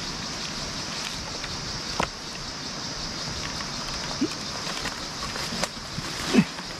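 Steady high insect drone over a constant rushing hiss from a nearby stream, with a sharp knock about two seconds in and a few knocks and rustles near the end as a wooden pole is shifted through the leaves.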